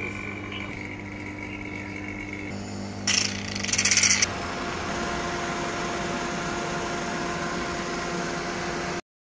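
Refrigerant vacuum pump on a car's AC system running with a steady hum. About three seconds in comes a loud hiss of rushing air lasting just over a second, as a line on the evacuated system is opened. The hum changes note after it, and the sound cuts off abruptly near the end.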